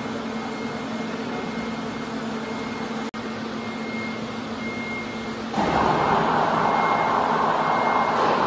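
Steady hum of factory machinery, broken by a brief dropout about three seconds in; about two seconds before the end a louder, even rushing machine noise starts and holds.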